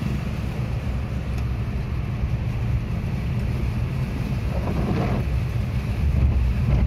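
Car cabin noise while driving through heavy rain on a flooded road: a steady low rumble of engine and tyres under a hiss of rain and water, with a brief swish about five seconds in.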